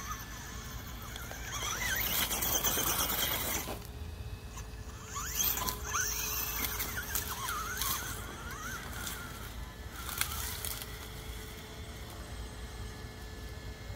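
RC rock crawler with a Castle 2280kv Slate brushless motor driving in short throttle bursts. The motor whines and squeals, its pitch rising and falling quickly, with two louder spells of drivetrain and tyre noise as it crosses grass and leaves and onto rocks.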